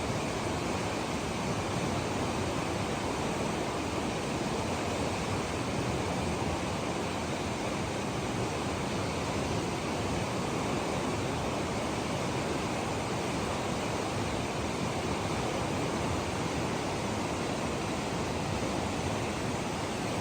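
Mountain river flowing, a steady, unchanging rush of water.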